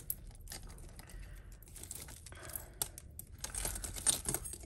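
Tangled costume jewellery handled and picked apart: irregular small clicks and clinks of metal chains, charms and beads knocking together, busier about three and a half seconds in.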